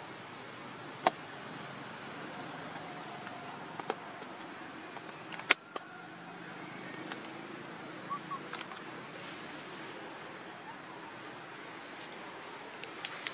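Steady high insect drone with a fast pulsing texture, broken by a few sharp clicks, the loudest about halfway through.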